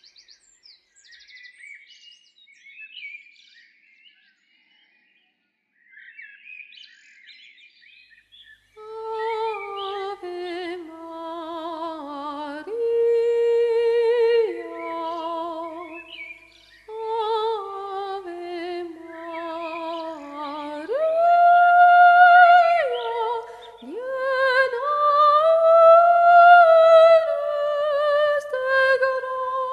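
Faint bird chirps, then from about nine seconds in a woman's voice sings a slow wordless melody, long held notes with vibrato that step up and down.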